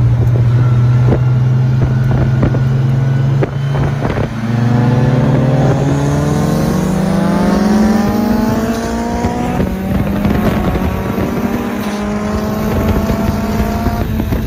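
Turbocharged SR20DET four-cylinder engine of a Datsun 1600 under way. It runs at steady revs, drops about three and a half seconds in, then climbs in pitch under acceleration for about five seconds. It drops again near ten seconds in and runs fairly steady to the end.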